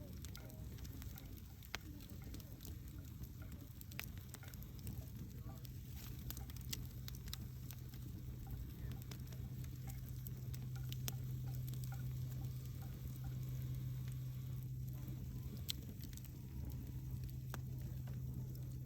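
Wood fire burning, with scattered sharp crackles and pops from the burning logs over a steady low rumble that grows louder in the middle.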